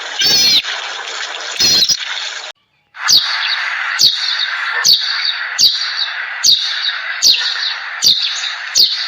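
A bird repeats a short, sharp, falling chirp about eight times, roughly one every 0.8 seconds, over a steady hiss. Before it, in the first two seconds, two short louder calls from another animal sound over a noisy background, then the sound cuts off briefly.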